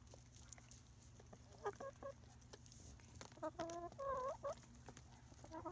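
Backyard chicken pullets clucking as they feed: a short call about two seconds in, then a longer run of clucks near the end. Light ticks of beaks pecking food run through it.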